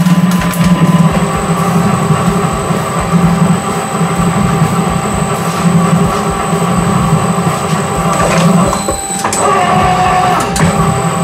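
Industrial twin-shaft shredder running, its motor and gearbox giving a loud, steady, pulsing hum as the cutter shafts turn. Later, scattered cracks and crunches as a plastic clog is caught and torn up between the blades.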